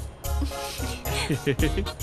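Background music with a steady beat and a gliding melody.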